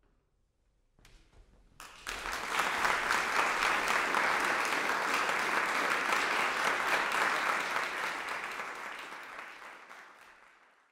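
Audience applauding: a few scattered claps, then full applause building within a second and fading out near the end.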